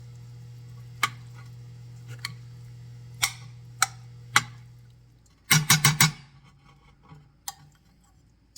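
Spoon clicking and scraping against a dish while folding a thick cream cheese sauce into broccoli, with a quick run of sharp knocks about five and a half seconds in. A low steady hum underneath stops about five seconds in.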